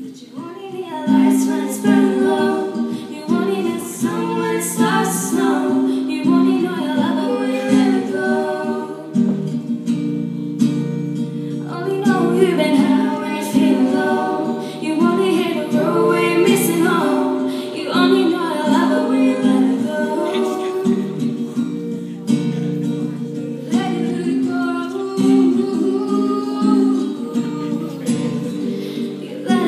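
Live singing with acoustic guitar accompaniment, the sung melody carried over steadily played guitar chords.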